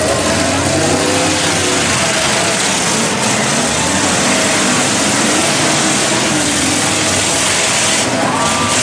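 Several demolition derby car engines revving together, their pitches rising and falling over one another under a loud, steady wash of noise.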